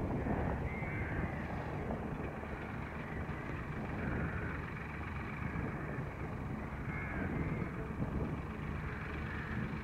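Ford 3000 tractor's three-cylinder engine running steadily as the tractor drives along at an even pace.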